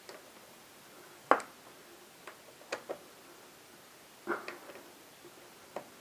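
Scattered sharp clicks and light taps from hand tools working the front fork's axle pinch bolts, with one louder click about a second in and a short cluster near the two-thirds mark.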